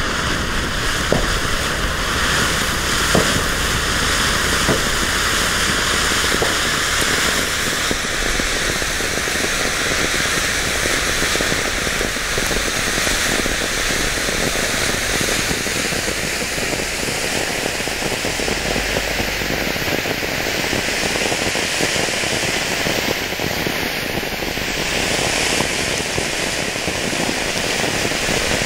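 Large Lonestar firework fountain with coloured stars burning, a steady, loud rushing hiss of spraying sparks, with a few sharp pops in the first several seconds.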